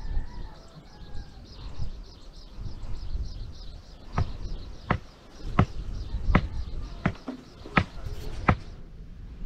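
A run of seven sharp, evenly spaced knocks, about one every 0.7 seconds, starting about four seconds in. Under them is a high chirp repeating about three times a second and a low rumble of wind.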